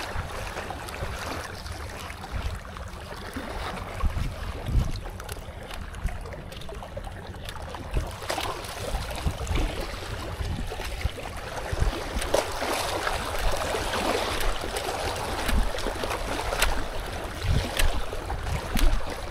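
Wind buffeting the microphone in uneven low gusts over the wash of small waves lapping on a rocky shoreline, with a few sharp clicks scattered through.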